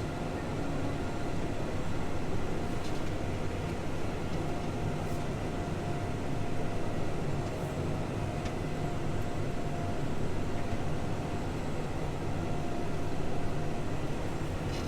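Case IH tractor's diesel engine running steadily under load, pulling two Massey Ferguson 1844S square balers in tandem.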